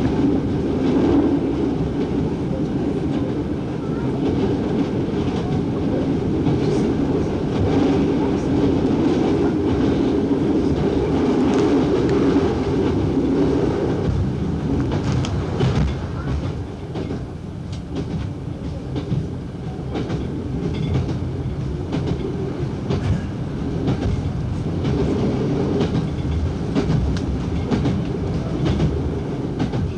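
Diesel multiple unit heard from the driver's cab: a steady engine and running drone, with the wheels clicking over rail joints. About halfway through the drone eases and the clickety-clack of the wheels stands out more.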